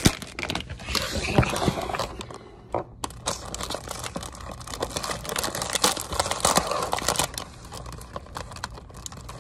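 Close, irregular rustling and crinkling right at the microphone, with scattered clicks, busiest in the first seven seconds or so and thinning toward the end.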